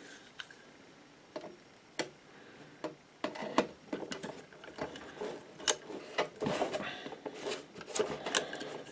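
Hand pop rivet gun on an extension nosepiece clicking and clattering as a 3/16-inch aluminium rivet is set in a hole in a plastic ammo can and the handles are worked: a few separate clicks, then a busy run of clicks from about three and a half seconds in.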